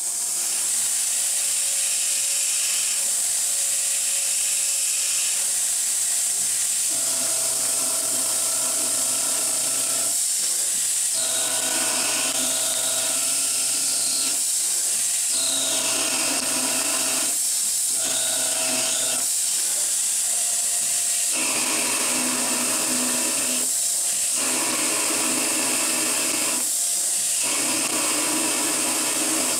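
Steady hiss of a compressed-air blast nozzle blowing on the turning tool while a Novakon Torus Pro CNC mill turns a 1020 steel tube in its spindle at 2000 rpm. From about seven seconds in, a machine hum of several steady tones comes and goes in stretches of a few seconds.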